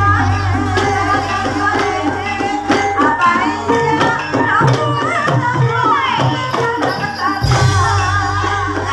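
Live Javanese gamelan music for an ebeg horse dance, with frequent drum strokes under a stepped melody of struck notes and a gliding melody line above. A low steady hum drops out about two and a half seconds in and comes back near the end.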